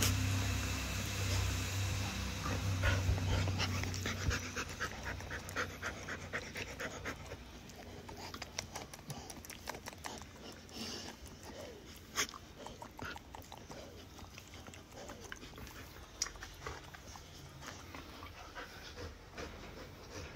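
Husky panting in quick, rhythmic breaths close to the microphone, with a low rumble of handling in the first few seconds.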